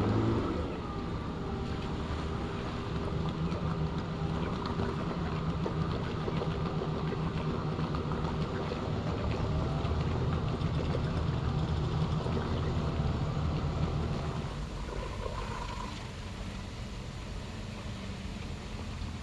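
Boat's outboard motor running under power in shallow water, driving the boat up onto its trailer at a ramp and churning up prop wash. A steady engine hum that grows louder for a stretch, then drops away about fifteen seconds in.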